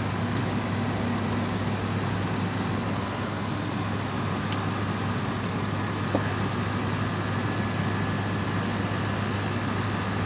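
Frigidaire 5000 BTU window air conditioner running on low cool: the compressor's steady low hum under the rush of the fan, fairly quiet.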